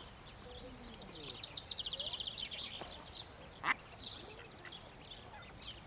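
Mallard ducklings peeping: many high-pitched peeps, with a rapid run of them about a second in. One short, sharp, louder sound cuts in a little past halfway.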